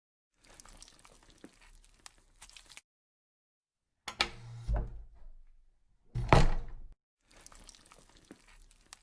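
Edited-in sound effects separated by dead silence: a faint crackly hiss, then a sharp knock with a short rumble and a louder door-like thud, then the faint crackle again.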